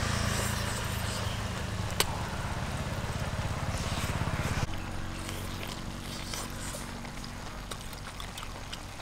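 A steady low engine hum, pulsing quickly before it changes abruptly about halfway through to a quieter, lower hum. There is a single sharp click about two seconds in.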